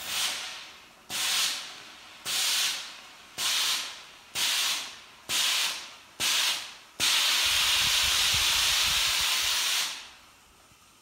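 Steam iron firing shots of steam: seven short hisses about a second apart, each fading quickly, then one long hiss of about three seconds with a low rumble under it.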